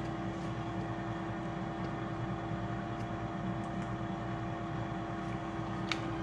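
Steady whirring hum of a kitchen appliance's fan motor, with one constant tone running under it.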